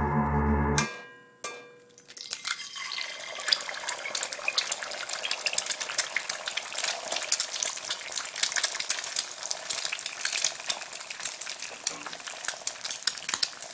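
A held musical tone fades out within the first second, and a single click follows. Then a dense crackle of fine pops builds up and carries on steadily.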